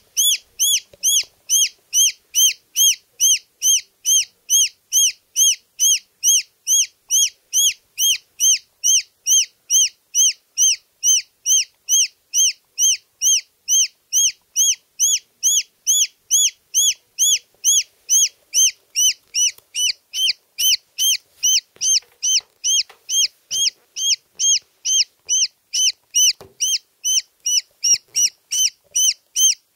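A baby chick peeping loudly and without pause, about two peeps a second; each peep is a short, high note that rises and falls.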